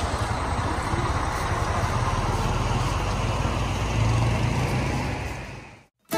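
A motor vehicle's engine idling steadily under outdoor background noise, fading out shortly before the end.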